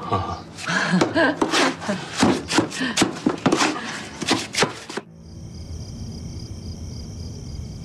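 A hand tool chopping and working a wet coal-and-mud mix, about three strokes a second. About five seconds in, this cuts off suddenly and gives way to a steady, high chirring of night insects.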